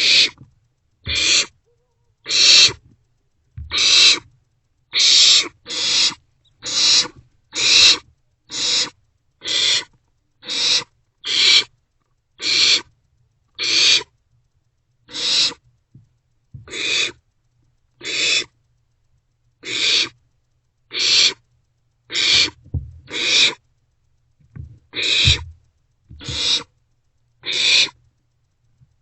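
Barn owlets giving harsh hissing screeches, short rasping bursts repeated about once a second. This is the food-begging hiss of nestling barn owls.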